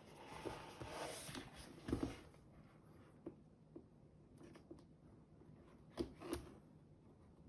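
Cardboard shipping box being opened and handled: rustling and scraping for about the first two seconds, then scattered light knocks and taps of the packaging.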